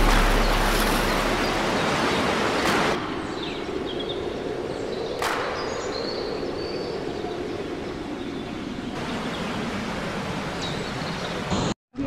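Steady rushing water of a waterfall and its pool, changing abruptly in level a few times and cutting out briefly near the end.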